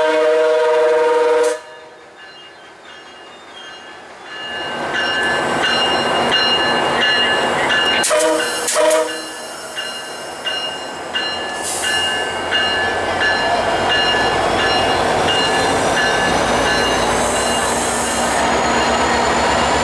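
A MARC commuter train's diesel locomotive horn sounds a multi-note chord that cuts off suddenly about a second and a half in. After a short lull, the locomotive runs close by at the platform with a steady engine and train noise, a short horn blast about eight seconds in, and a faint rising whine later on.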